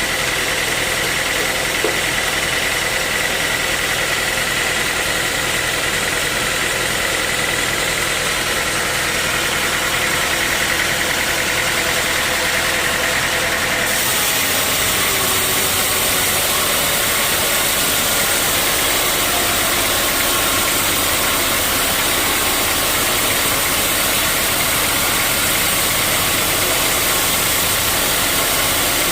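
Sawmill machinery running steadily: a continuous engine-like drone with a high whine in the first half. The sound changes abruptly about halfway through.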